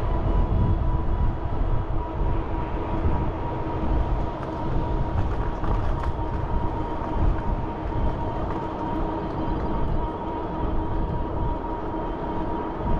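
Steady low rumble of wind and rolling noise while riding a bicycle, with a constant whine held at a middle and a higher pitch.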